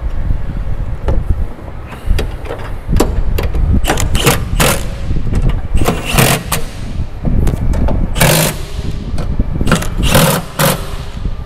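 Milwaukee M18 cordless impact wrench running in several short bursts as it drives down the nuts on a bolted plate, over a steady low rumble.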